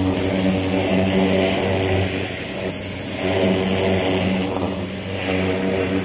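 Greenworks 1700 PSI electric pressure washer running, its motor and pump humming steadily under the hiss of the water jet hitting the mower deck. The spray eases briefly about two and a half seconds in and again near five seconds.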